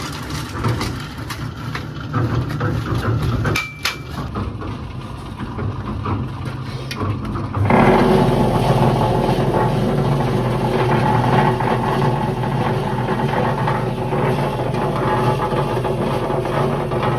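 An engine running steadily, with clatter, then suddenly louder with a heavier, steadier note about eight seconds in.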